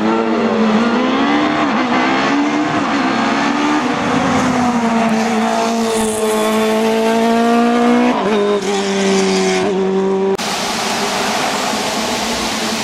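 High-revving engine of a single-seater formula racing car at full throttle, the pitch climbing and falling with throttle and gear changes, with quick drops in pitch at upshifts about eight seconds in. About ten seconds in, the sound switches abruptly to an even rushing noise with a fainter engine under it.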